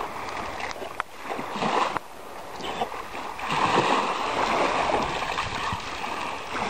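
Water splashing as a Labrador retriever swims in and wades out through the shallows at the sea's edge, with small waves washing on the shore. The splashing grows louder about three and a half seconds in.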